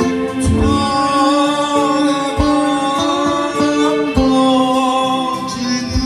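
Music: a singing voice holding long, wavering notes over guitar, with a low drum thump about every two seconds.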